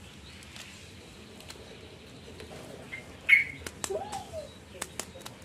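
Light plastic clicks and taps from handling a plastic action figure and fitting its helmet, starting a little past halfway, after a sharp rustle about three seconds in. A short chirp-like call rises and falls about four seconds in.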